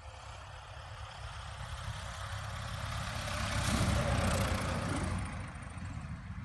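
Piper Pacer PA-22-160's four-cylinder Lycoming engine and propeller at low power as the plane lands and rolls past on grass. The sound swells to its loudest about four seconds in and then fades as the plane moves away.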